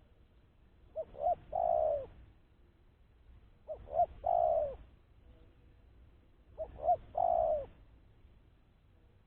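Spotted dove (tekukur) cooing: three phrases in a row, each two short notes followed by a longer coo that falls in pitch, repeating about every three seconds.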